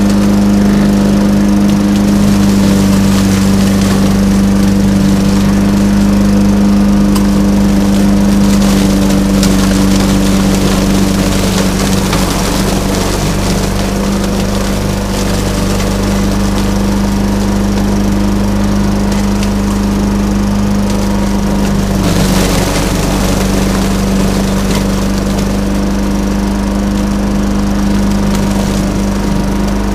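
Walk-behind lawn mower running steadily with an even hum as it is pushed along.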